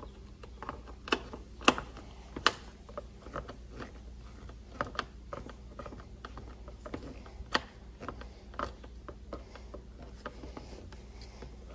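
Hand screwdriver turning a screw into a plastic tool housing: irregular small clicks and ticks from the bit and screw and the hand re-gripping the handle, with a few sharper clicks about a second or two in.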